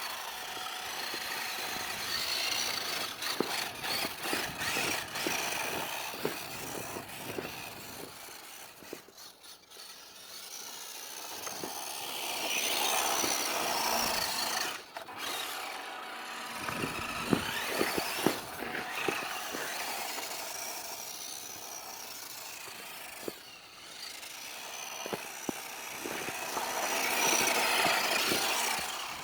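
WPL D12 RC drift truck's small electric motor and gears whining as it drives, louder at times as the truck comes close and fading as it moves away, with scattered ticks and crunches from the tyres.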